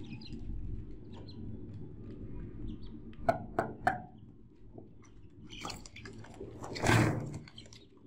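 Poultry sounds over a low steady hum: three short, sharp clucks about three seconds in, then a louder, noisier burst lasting about a second near the end.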